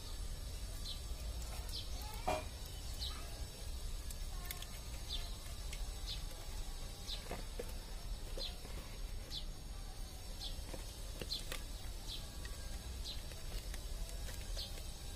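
Small birds chirping repeatedly, short high downward-sliding calls about once a second, over a steady low background rumble. A few light clicks and knocks come from the mixer-grinder motor and its plastic body being handled.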